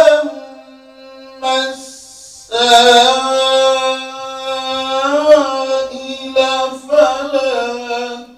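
A man recites the Quran in a melodic, chanted style, holding long notes with ornamented turns of pitch. There is a brief lull about a second in, then sustained phrases, one with a wavering rise and fall in pitch about five seconds in.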